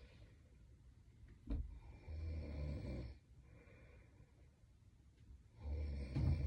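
A sleeping young woman snoring: two rough snores of about a second each, one about two seconds in and one near the end, with quieter breathing between them. A short sharp sound comes about a second and a half in.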